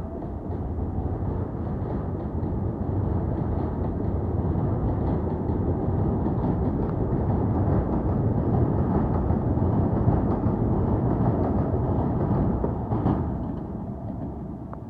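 R188 subway train pulling out of an elevated station, the rumble of its wheels on the rails building as the cars roll past, then fading as the train moves away. One louder clack comes near the end.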